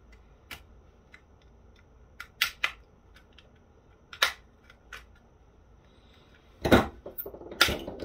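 Plastic snap-fit clips of a Panasonic KX-TGA660 cordless phone handset's case clicking and cracking as the shell is pried apart with a small screwdriver, in a series of sharp snaps. The loudest two come near the end, about a second apart, as the case halves separate.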